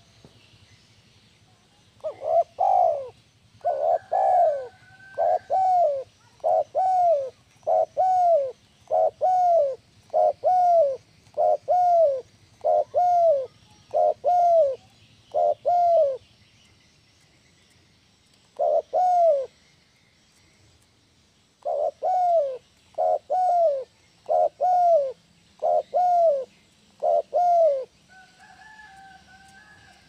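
Spotted dove (tekukur) cooing: a long run of short, evenly spaced coos at about one a second, a pause with a single coo, then a second shorter run. Small birds chirp faintly in the background.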